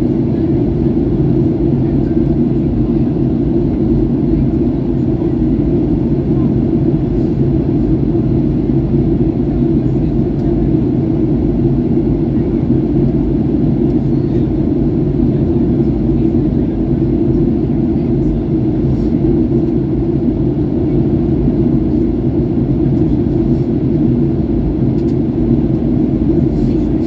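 Steady low cabin rumble of a Boeing 737-800 in flight: its CFM56-7B jet engines and the airflow over the fuselage, heard from a window seat inside the cabin.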